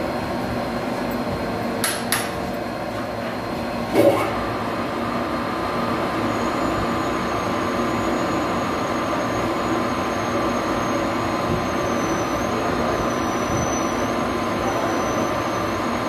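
Metal lathe running steadily, with two clicks and a sharp knock in the first four seconds. From about six seconds in, a thin, wavering high whine joins the machine noise.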